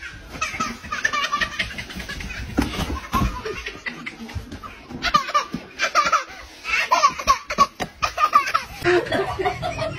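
A toddler laughing hard in repeated bursts of belly laughter.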